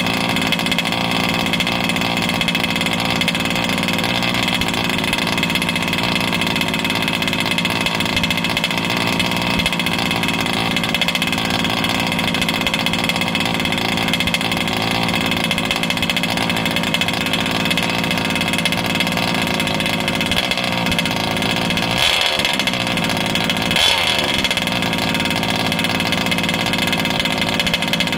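ESP 34 two-stroke petrol engine in an RC truck idling steadily on its first start. It runs rich and a little rough, still burning off the oil from assembly. Its note wavers briefly twice near the end.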